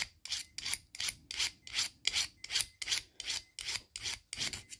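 Thin needle file drawn across the steel teeth of a pricking iron in quick, even strokes, about three a second, sharpening the teeth and taking off burrs.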